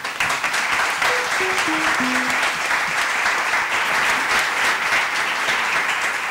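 Audience applauding steadily. About a second in, a short falling run of four musical notes sounds over the clapping.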